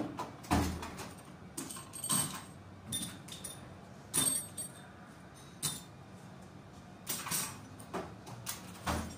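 Workbench handling noises: an irregular string of short clatters and scrapes as objects are picked up and set down, a few with a brief metallic ring.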